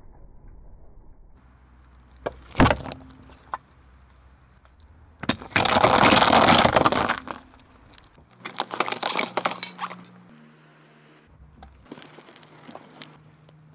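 A car tyre rolling over and crushing small objects on asphalt, in separate clips: a sharp crack, then a long loud burst of crunching and crackling, another burst a few seconds later, and lighter crackles near the end, over the low steady hum of a car engine.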